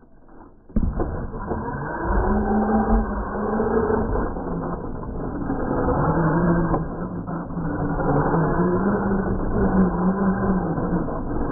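Losi LMT electric RC monster truck driving on dirt on a 2S battery: about a second in the throttle is punched, then its drivetrain whine rises and falls with the throttle over the rush of tyres on dirt as it runs on its rear wheels in a wheelie.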